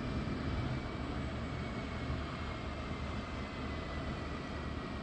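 NMBS/SNCB class 18 electric locomotive humming at low speed, a steady low rumble with a faint high whine that drifts slightly lower in pitch.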